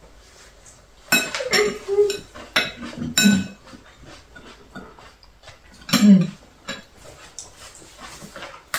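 Chopsticks clinking against ceramic bowls during a meal: a run of sharp, ringing clinks in the first few seconds, then quieter tapping. A brief voice sound about six seconds in.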